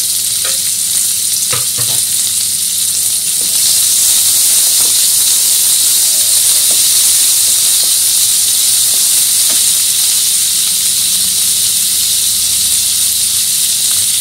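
Chopped onion sizzling in hot mustard oil in a kadhai, a steady hiss that grows a little louder about three and a half seconds in. A wooden spatula stirring it gives occasional light clicks.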